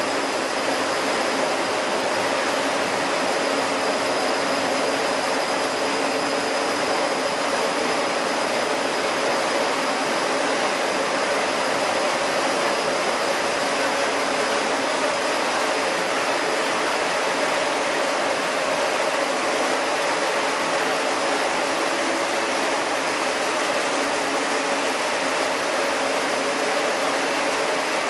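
Chili powder milling line machinery running steadily: a dense, unchanging mechanical noise with a constant high whine.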